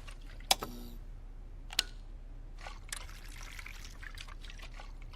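Three separate wall light switch clicks, about a second apart: a switch on the right flipped by mistake, the requested leftmost switch flipped, then the first switch flipped back off.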